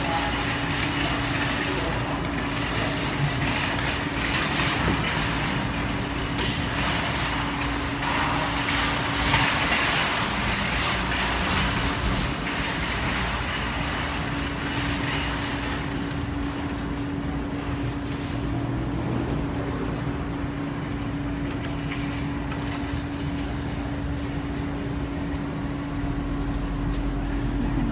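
Steady arcade room noise: a constant hum under an even wash of machine noise, a little louder in the first half.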